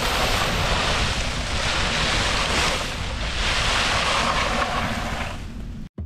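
Dry fallen leaves rustling and crackling as a plastic toy truck is pushed through them, with wind rumbling on the microphone. It cuts off abruptly near the end.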